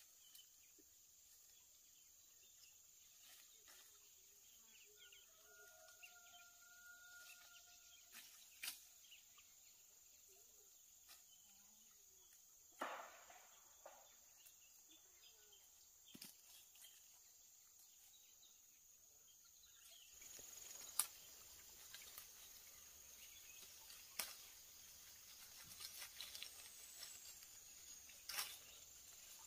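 Near-silent rural ambience: a steady high insect drone, with scattered light clicks and knocks and a faint drawn-out call about six seconds in.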